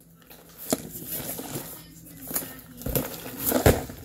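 A package being handled and opened by hand: rustling of the wrapping with several sharp knocks and clacks, the loudest about three and a half seconds in.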